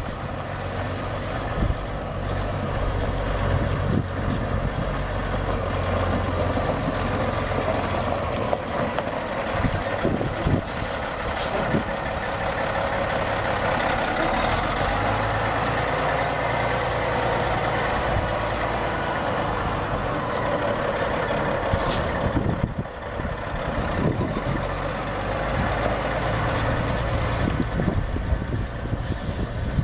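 The Caterpillar C15 inline-six diesel of a 2007 Sterling L9500 semi tractor runs steadily as the truck moves about. Brief sharp hisses of released air come about a third of the way in and again about two thirds through.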